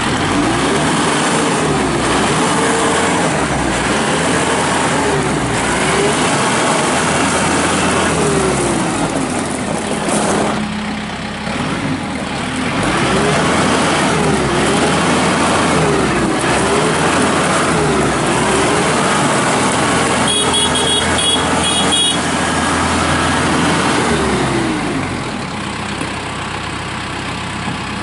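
Kubota M6060 tractor's four-cylinder diesel engine running as the tractor is driven about. The engine note rises and falls over and over, and it drops back to a steady lower note for a moment about ten seconds in.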